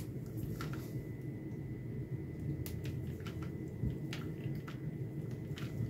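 Faint scattered light clicks and rustles of test leads and probes being handled, over a steady low hum.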